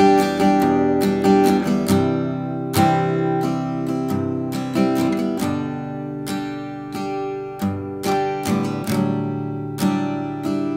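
Instrumental background music of strummed guitar chords, with a steady, even strumming rhythm.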